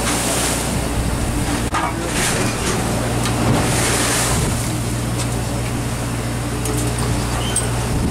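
Steady low drone of a party fishing boat's engine, with wind and the choppy sea washing over it now and then.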